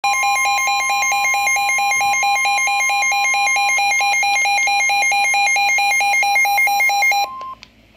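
Emergency Alert System alert tones for a tornado warning: a loud steady tone with a second tone pulsing on and off rapidly over it. Both cut off a little before the end.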